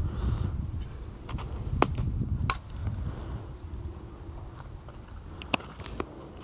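A softball smacking into a leather fielding glove: a few sharp pops, the loudest about two seconds in and two more close together near the end, over a low rumble.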